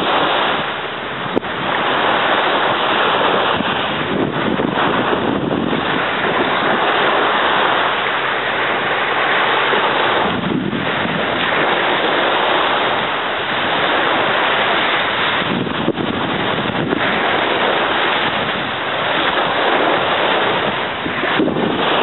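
Small surf washing onto a sandy beach, a steady wash that swells and eases, with wind buffeting the microphone. A single brief click about a second in.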